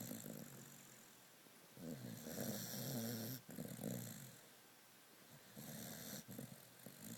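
A sleeping pet snoring in slow, repeated snores: one at the start, a longer one about two seconds in followed at once by a short one, and another near the end.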